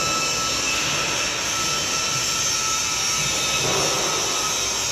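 Steady industrial background noise of a steel fabrication shop: a loud, even hiss with a faint high tone running through it.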